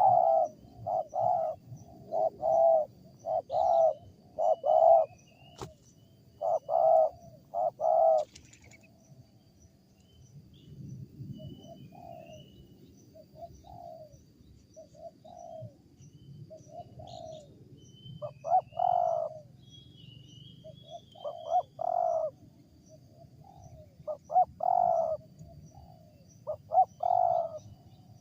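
Wild spotted dove cooing in runs of short, repeated coos. The coos are loud at first, soften after about ten seconds, then grow loud again. Its call has an odd, unusual sound for the species.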